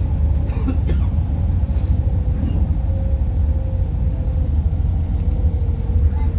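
Cabin of a MAZ-105 city bus under way: a steady low rumble of the engine and road noise, with a faint steady hum above it and a few light rattles about a second in.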